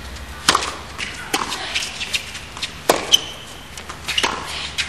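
Tennis ball knocks during play: a handful of sharp, separate impacts of ball on racket or court, a second or more apart, with a short high squeak just after the knock about three seconds in.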